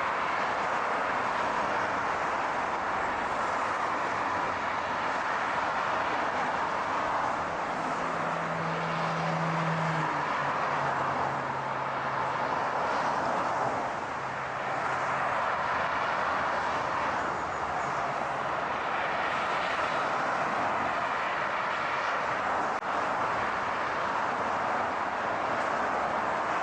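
Steady car road noise, a continuous rush of tyres and engine. A low engine hum joins about seven seconds in, drops in pitch a few seconds later and fades away before the halfway mark.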